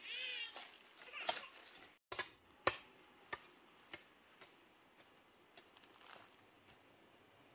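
A domestic cat meows once, briefly, at the start. After a short break, a few sharp clicks or knocks follow about half a second apart and grow fainter.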